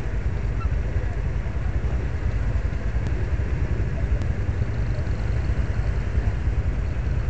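Honda Verza motorcycle's single-cylinder engine running steadily at idle or low speed, heard as an even low drone from the bike itself. The engine runs on thick Mesran B diesel oil, which the owner credits for its smooth sound.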